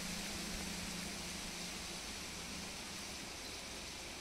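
Quiet, steady hiss of outdoor background noise, with a faint low hum that fades out about halfway through. No splash or handling sound stands out.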